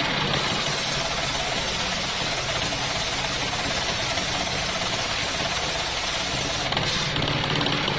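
Engine-driven homemade circular saw bench, its large blade ripping coconut-palm wood into planks: a steady hissing rasp of cutting over the engine's constant drone. The high cutting noise dips for a moment near the end.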